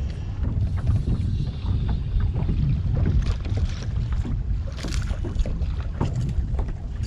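Fishing boat running across the lake: a heavy, irregular low rumble with wind buffeting the microphone and scattered knocks.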